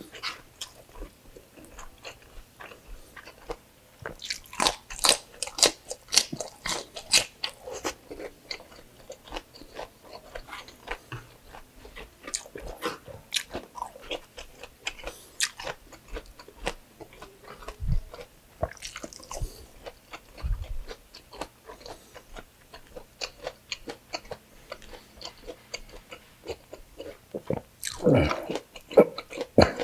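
Close-miked eating: a man chewing pork belly adobo and rice by hand, with wet mouth smacks and a run of crisp crunchy bites about four to eight seconds in. Near the end comes a louder, wetter stretch as he brings the pork to his mouth.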